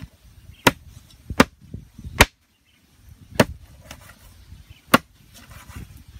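Large knife chopping a plucked chicken into pieces on a wooden cutting board: five sharp chops, unevenly spaced.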